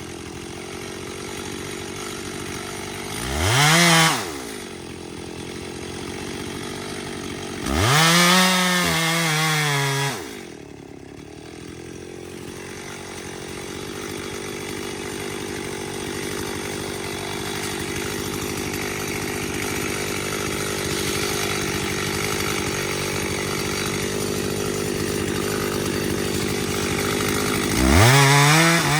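Two-stroke chainsaw idling, revved up briefly about four seconds in, held at high revs for about two seconds around eight seconds in, and revved again near the end.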